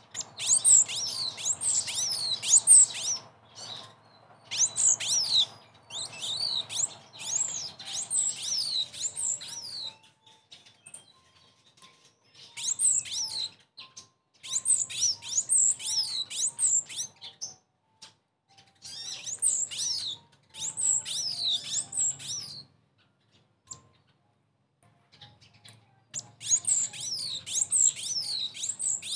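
Cinereous tit (gelatik batu) giving its lure call: bursts of rapid, high-pitched chirps and downward-sliding whistles, each run lasting a few seconds with short pauses between.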